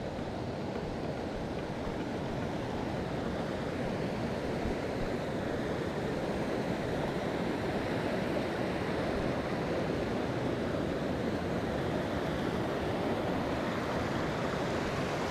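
Rushing water, an even steady noise that grows slowly louder.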